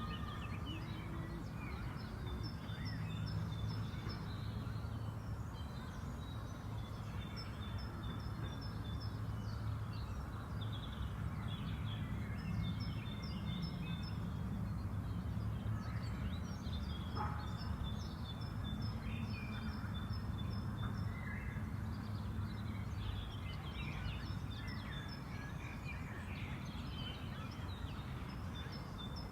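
Several birds singing and chirping, some in repeated runs of quick high notes, over a steady low rumble of park background noise.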